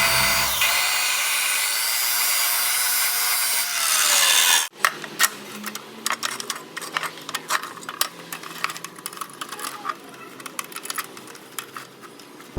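Power tool grinding on the metal of the exhaust pipe, with a wavering whine, for about four and a half seconds, then stopping abruptly. Irregular hand rasping and scraping strokes on the metal follow, quieter.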